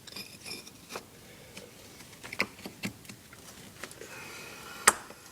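Scattered light clicks and knocks of metal ATV axle parts being handled and fitted, with one sharper knock near the end.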